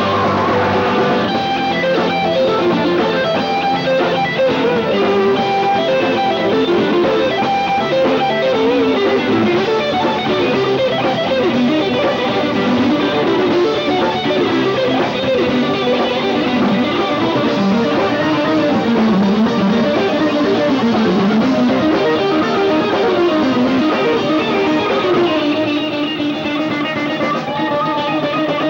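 Live rock band playing, led by a winding electric guitar line with bends over bass and drums. It is heard through a dull mini-cassette recording with no highs.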